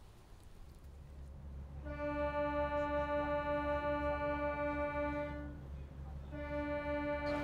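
A pitched wind or reed-like instrument holding one steady note for about three and a half seconds. After a short break it sounds the same note again, over a constant low hum.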